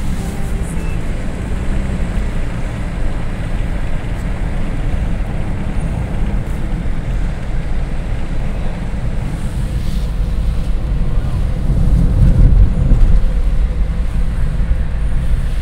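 Steady low rumble of road and engine noise inside a moving car, with wind buffeting the microphone; it swells a little about twelve seconds in.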